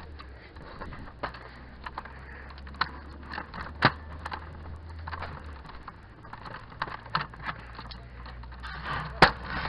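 Irregular sharp clicks and knocks over a low hum, the loudest about four seconds in and again near the end.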